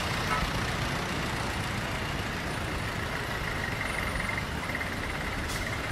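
Steady cabin noise inside a moving jeepney: the engine running and road noise, at an even level with no distinct events.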